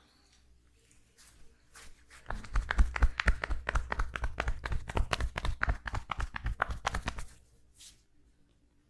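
Rapid percussive massage tapping: hands striking the body in a quick, even run of dull thumps for about five seconds, starting after a few faint light taps.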